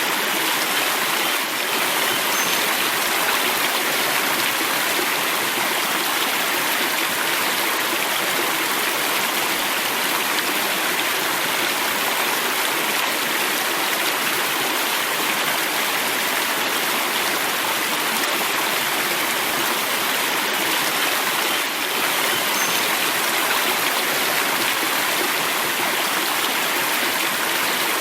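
River water flowing: a steady, even rush of water with no change in level.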